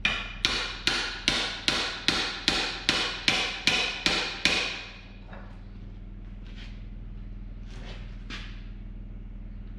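A hammer driving a steel drift against a John Deere 6400's front-axle steering knuckle: a dozen ringing metal-on-metal blows, about two and a half a second, then a few faint knocks. The knuckle is seized and won't pop free.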